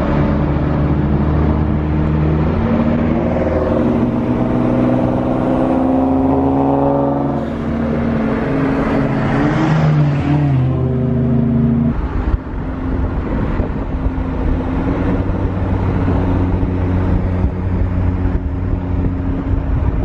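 Car engine and exhaust accelerating at highway speed, heard from inside a car. Its pitch climbs and steps with gear changes. About halfway through it gives way abruptly to a steadier engine drone with more road and wind noise.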